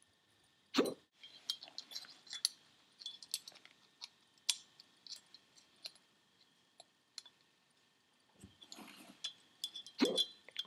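Irregular small metal clicks and clinks of a screwdriver working a steel C-clip into the bearing bore of a Holset HX40 turbo's bearing housing, with a louder knock about a second in and another near the end.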